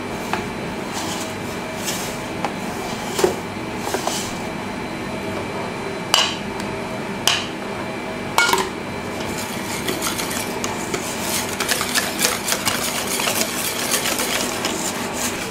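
Wire balloon whisk folding whipped cream into chocolate mousse mixture in a stainless steel bowl. The wires scrape the metal, with a few sharp knocks against the bowl through the middle and quicker clicking and scraping over the last few seconds.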